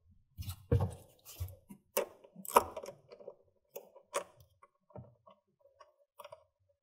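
Irregular series of light clicks and small knocks as the negative cable clamp is set onto the 12-volt battery post of a Ford F-150 Lightning, re-energizing the truck's electrical system, whose relays can click as power returns. The clicks thin out in the last couple of seconds.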